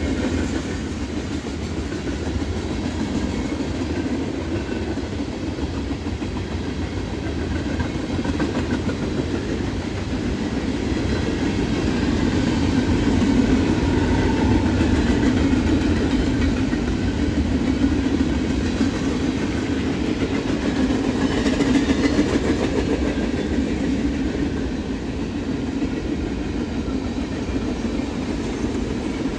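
Long Norfolk Southern freight train rolling past, its cars making a steady rumble of steel wheels on rail, with some clicking over rail joints.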